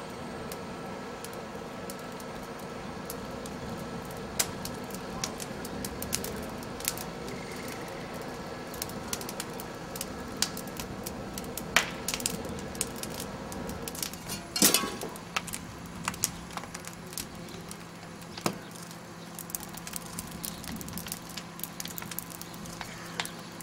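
Kitchen fire burning through wooden cabinets: a steady rush of flame with many sharp cracks and pops, and a loud burst of cracking a little past the middle.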